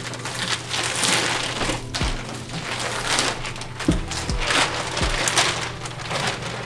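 Thin clear plastic bag crinkling and rustling in bursts as it is pulled off and tossed aside, over background music with low drum thumps.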